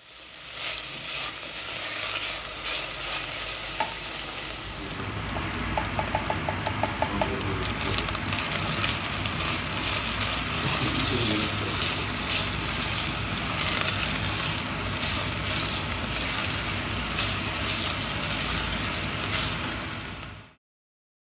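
Ground meat and tomato paste sizzling as they fry in a stainless steel pot, stirred and scraped with a silicone spatula. A quick run of light ticks comes about six seconds in, and the sizzling cuts off suddenly near the end.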